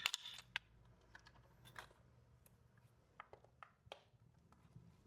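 Faint, scattered small clicks and taps from handling the air filter, its screws and tools, with a short rustle at the start, against near silence.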